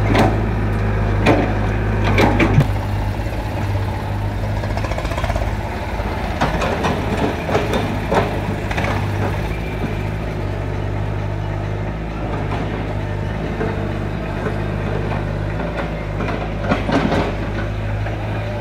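Diesel engines of a Caterpillar E70 crawler excavator and a waiting tractor running steadily, with scattered knocks and clatter as the excavator bucket digs and drops soil into the tractor's trolley.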